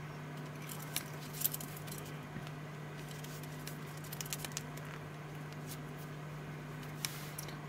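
A few light clicks and rustles of a leather watch strap and its metal buckle being handled, over a steady low hum.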